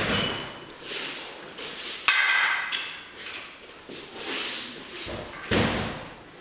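Sword-and-staff sparring on a wooden floor: swishes and shuffling steps, a sharp strike with a brief ringing about two seconds in, and a heavy thump of a stamped step about five and a half seconds in.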